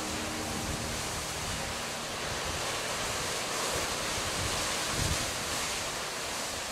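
Atlantic surf washing in over the rocky shoreline, a steady rushing hiss, with gusts of wind buffeting the microphone, the strongest about five seconds in.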